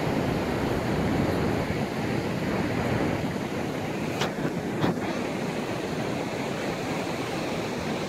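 Steady surf washing on a sandy beach, with wind buffeting the microphone. Two brief faint clicks come about halfway through.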